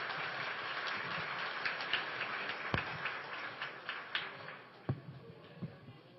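Audience applauding, dying away after about four seconds, then a few scattered single claps.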